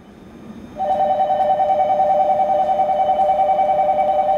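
Electronic warning buzzer: two steady tones sounding together with a fast warble, starting about a second in and holding at one level over a low background hum.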